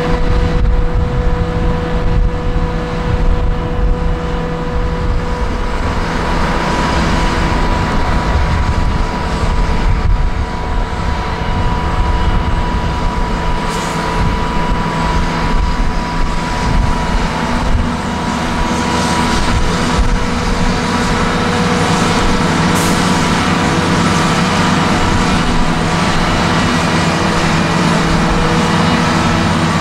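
Heavy diesel farm machinery running steadily under load, a deep engine note with constant whining tones over it, shifting slightly in the second half.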